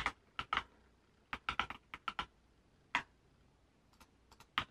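About a dozen scattered clicks from a computer mouse and keyboard, some single and some in quick runs of two or three.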